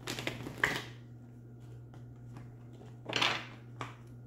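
Tarot cards being shuffled and handled: a short burst of card noise at the start and another about three seconds in, with a click just after, over a steady low hum.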